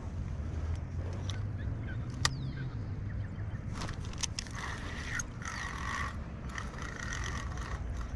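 Fishing reel being cranked to bring in a hooked redfin: a rhythmic whirring with rapid ticks, starting about four seconds in with a few short pauses. A low steady rumble runs underneath.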